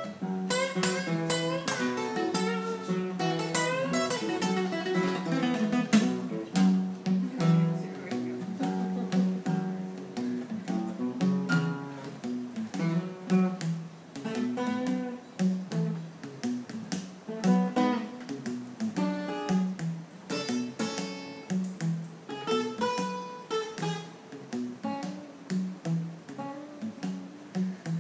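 Two acoustic guitars playing an instrumental blues passage together, with strummed chords and quick picked note runs.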